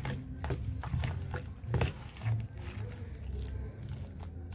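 Metal spoon stirring a thick mashed-potato and egg mixture in a plastic bowl, with irregular clicks and scrapes of the spoon against the bowl, over a low steady hum.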